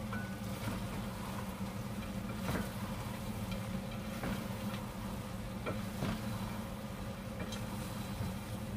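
Wooden spatulas tossing chicken feet in a ceramic bowl: soft stirring with a few sharp knocks of wood on the bowl's rim, over a steady low hum.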